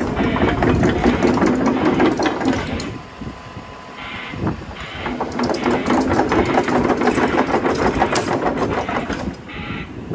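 Komatsu PC210LC-11 crawler excavator's 123 kW diesel engine running hard, with a fast mechanical clatter over it. It is loud for about the first three seconds, drops back for about two seconds, then is loud again until near the end.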